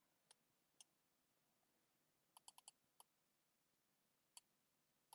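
Faint, sharp clicks of computer input while drawing: single clicks, with a quick run of four about two and a half seconds in.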